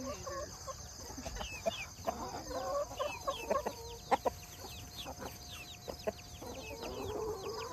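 A flock of young chickens clucking, over a continuous run of high, falling peeps. A few short sharp sounds stand out about four seconds in.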